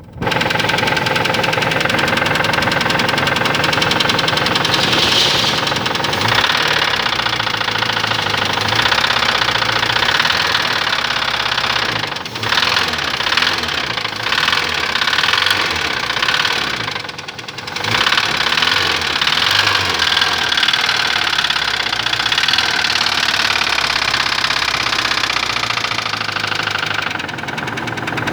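Fiat Uno engine running with a rapid, steady ticking knock, which the owner suspects comes from the cylinder head. The sound dips briefly twice midway.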